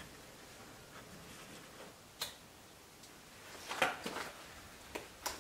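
A few scattered faint clicks and knocks against quiet room tone, the loudest cluster about four seconds in.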